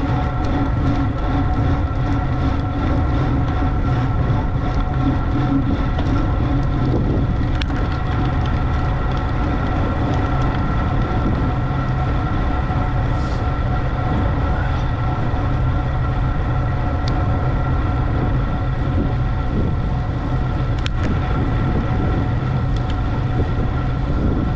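Steady road-travel noise: a constant low rumble of wind and road with a steady hum over it, and a few faint ticks. It neither rises nor falls.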